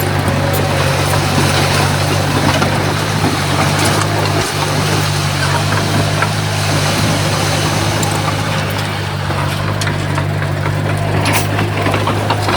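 Crawler bulldozer's diesel engine running steadily with a constant low drone, with a few faint clicks near the end.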